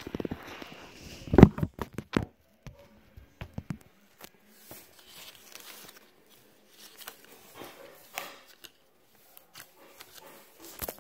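Handling noise from objects being moved by hand close to the microphone: a loud knock about a second and a half in, a few more clicks, then scattered light taps and rustling.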